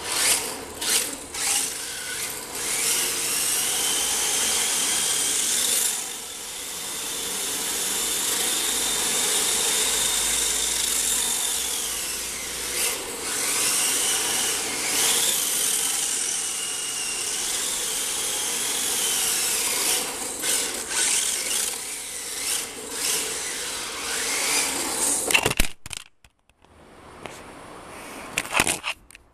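Small electric motor of a radio-controlled car whining as it drives over concrete, the pitch rising and falling with its speed over a steady hiss, with a few clicks. It cuts out near the end, then returns more faintly.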